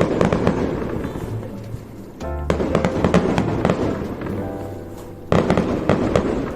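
Fireworks bursting in three volleys about two and a half seconds apart, each sudden bang followed by dense crackling, with music playing alongside.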